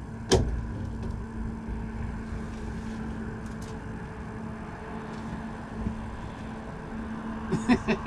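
A boat motor running with a steady hum over a low rumbling noise, and one sharp knock shortly after the start.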